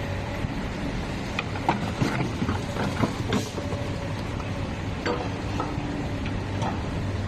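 Komatsu backhoe's diesel engine running steadily, with scattered metallic clanks and knocks from the machine working, bunched in the first half and again near the end.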